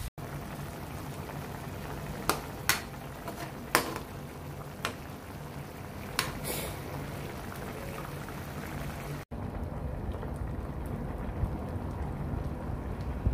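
Pork pieces simmering in liquid in a wok, a steady bubbling hiss, with a few sharp taps of the spatula against the pan in the first half. After a cut about nine seconds in, the simmering is softer, now in coconut milk with squash.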